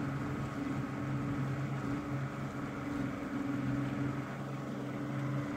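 Evinrude outboard motor running at a steady speed while the boat is underway, a constant hum over the rush of water and wind.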